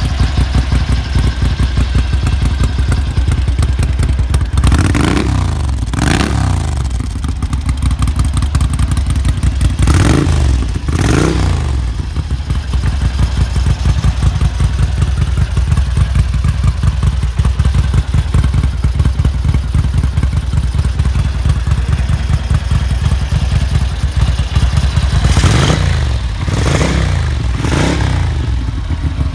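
Ducati 900 Mike Hailwood Replica's bevel-drive V-twin running at idle through round Conti mufflers. The throttle is blipped twice about five seconds in, twice more around ten seconds, and four times in quick succession near the end, the revs rising and falling each time.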